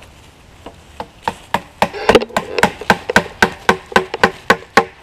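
Rapid, steady knocks, about four a second starting under a second in, as an axe drives green sapling wedges into a hickory log to split it lengthwise into bow staves. Each blow is a sharp wooden knock with a short ringing tone.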